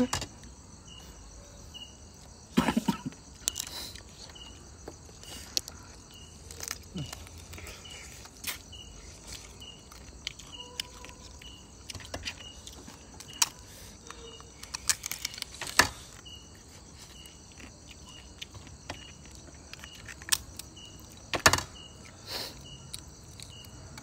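Crickets and other insects chirp steadily, in short evenly spaced chirps over a high drone. Scattered sharp cracks and clicks come through, the sound of crab shell being cracked and picked apart while eating.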